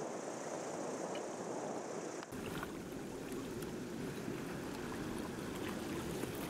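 Steady hiss of wind and surf, then about two seconds in a change to water sloshing and trickling against the yacht's hull, with small splashes.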